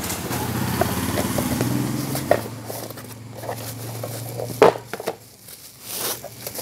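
Cardboard box and plastic wrapping being handled as a microphone is unpacked: scattered clicks and crinkles, with a sharp knock a little over four and a half seconds in. A steady engine drone runs under it for the first four seconds or so, then fades away.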